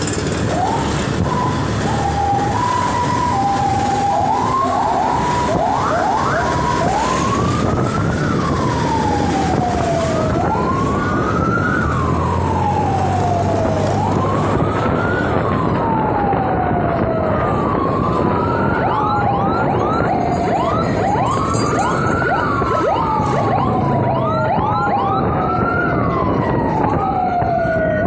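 Ambulance electronic siren: a quick alternating warble for the first few seconds, then slow wails rising and falling every two seconds or so, mixed with fast yelps, over steady road and engine noise.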